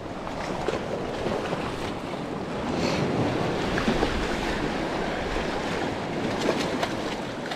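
Sea waves washing on the shore: a steady rushing noise that swells a little in the middle, with a few faint clicks near the end.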